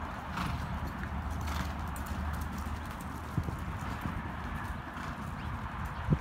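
Hoofbeats of a grey horse loping on soft dirt arena footing, muffled thuds over a steady low rumble, with a sharp thump near the end as the loudest sound.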